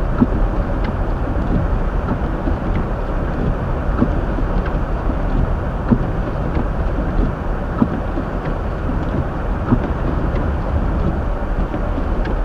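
Steady low rumble of a 2023 Hyundai Elantra driving slowly on a snow-covered road, heard inside the cabin: tyre and road noise with the engine underneath, and scattered faint ticks.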